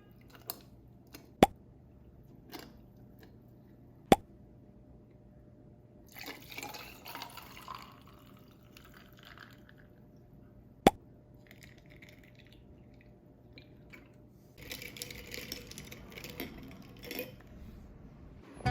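Kitchen sounds of making brown sugar syrup: three sharp clinks of a utensil against a glass or pan, spread out, and two stretches of water or liquid being poured and stirred.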